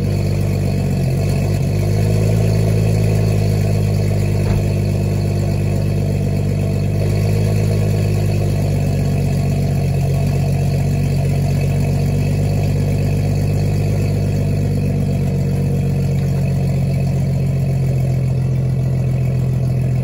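BMW 435xi's turbocharged 3.0-litre straight-six (N55) idling steadily, heard from behind at its quad exhaust tips.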